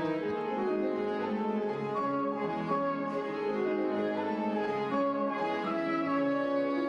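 Soprano and tenor saxophones playing a waltz melody in sustained notes, with piano accompaniment.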